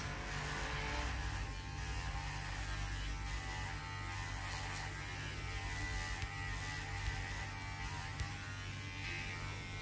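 Electric hair clipper running steadily with a low, even hum as it cuts short hair up the side of the head.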